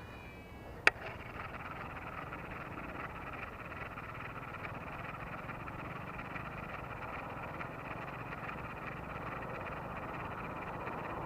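A single sharp click about a second in, then a steady chorus of calling animals from the wet field.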